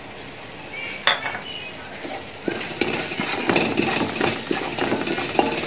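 Wooden spatula stirring and scraping onions and ground spices in an aluminium pot: irregular taps and scrapes starting about two and a half seconds in, after a quieter stretch with a single click about a second in.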